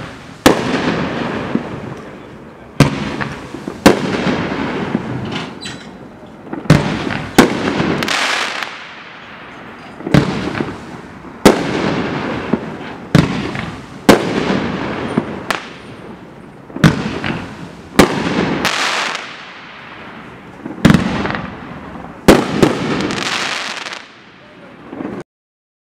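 A 500-gram consumer firework cake (Dominator 'Refuse to Lose') firing its 17 shots of mines and breaks one after another, one every one to two seconds. Each is a sharp bang followed by about a second of hiss and crackle fading out. The firing stops abruptly near the end.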